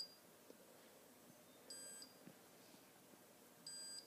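KIBO robot's barcode scanner giving two short, high beeps about two seconds apart. Each beep confirms that a programming block's barcode has been read successfully.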